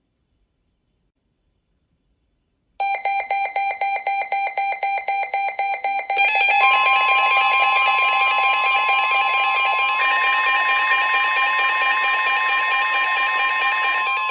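Electronic alert tones that open an emergency weather alert broadcast: after about three seconds of silence a rapidly pulsing electronic tone starts, and about six seconds in it thickens into a steady, layered alarm tone with a held higher note.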